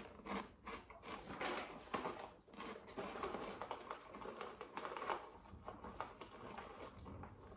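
Crisps (Cofresh chilli and lemon grills) being crunched and chewed in the mouth, an irregular run of crackling clicks.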